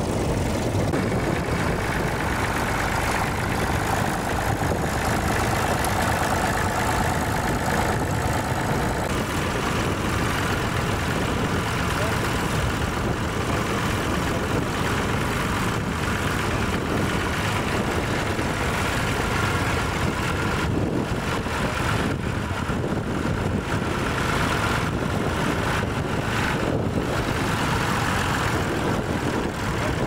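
Vintage tractor engine running steadily as it pulls a mounted plough, with strong wind buffeting the microphone.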